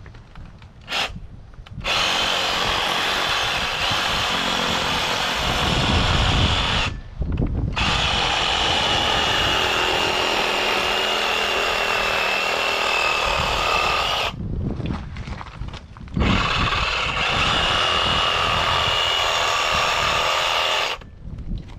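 Reciprocating saw cutting through a pig's rib bones along the spine. It runs in three long stretches of several seconds each, with short pauses between them.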